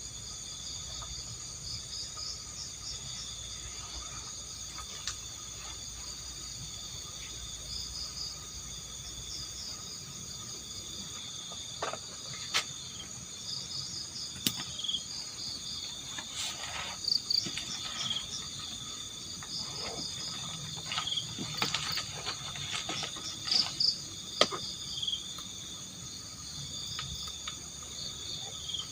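A steady chorus of crickets and other night insects in forest, with repeated high chirping over it. In the second half a scattered run of sharp knocks and rustles comes close by, louder than the insects.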